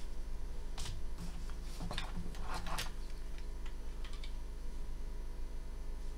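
Light clicks and rustles as the circuit boards and housing of a disassembled aircraft exhaust-gas-temperature gauge are handled, several in the first three seconds and a couple more about four seconds in, over a steady low hum.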